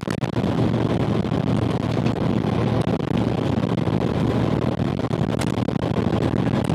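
Steady low rumble of a moving vehicle heard from inside, with running noise but no speech.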